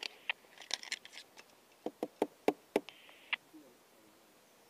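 Airsoft gun being worked to clear a stoppage: a run of sharp mechanical clicks, a few close together in the first second, then about six more roughly three a second.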